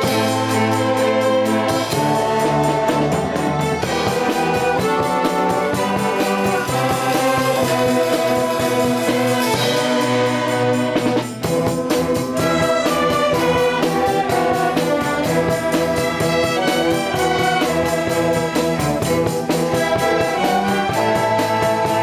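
A youth orchestra of strings and flutes (violins, cellos) playing an ensemble piece together, with a momentary dip in the sound about eleven seconds in.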